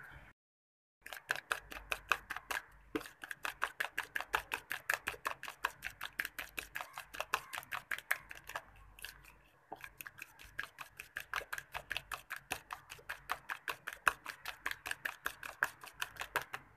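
A metal fork beating egg, sugar and oil in a bowl: fast, even clicking of the fork against the bowl, about five strokes a second, with a short pause a little past halfway.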